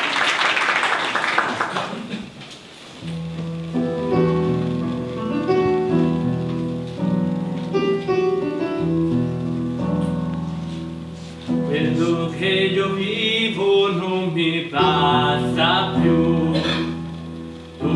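Applause fading out, then a digital stage piano plays a slow introduction of held chords. About twelve seconds in, a mixed choir starts singing over it.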